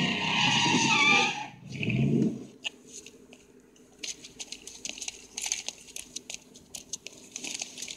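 DeLorean car skidding past, its engine running and tyres squealing, then dropping away suddenly about one and a half seconds in, with a short further rush of engine noise about two seconds in. After that it is quiet, with faint scattered clicks.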